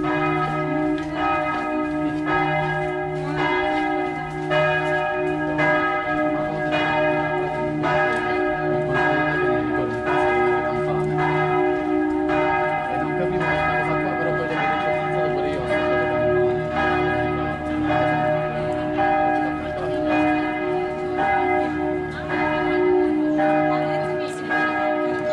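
Church bells ringing, struck a little over once a second, each stroke ringing on into the next.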